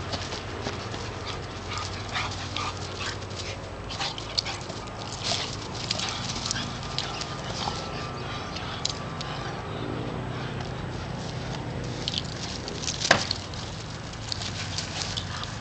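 Tamaskan dog at rough play, making short dog vocalisations, amid scattered sharp clicks and knocks, the loudest about thirteen seconds in.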